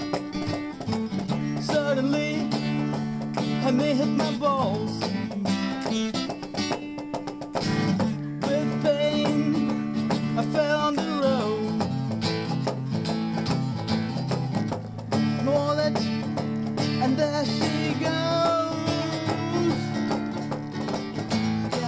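Acoustic guitar being played, its chords changing every second or two, with a melody line above them.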